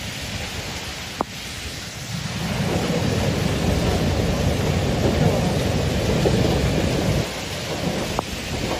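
Heavy rushing water noise with a deep rumble, swelling about two and a half seconds in and easing near the end, with a couple of faint ticks.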